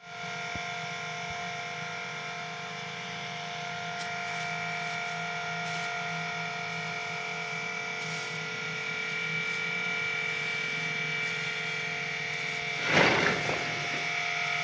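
Steady machine whine made of several held tones, with a brief louder rasping burst about thirteen seconds in.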